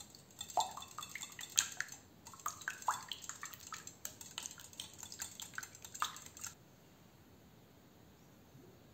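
Wire balloon whisk beating raw eggs in a glass bowl: quick, irregular clinking of the wires against the glass mixed with wet sloshing of the egg. It stops about six and a half seconds in, leaving faint room tone.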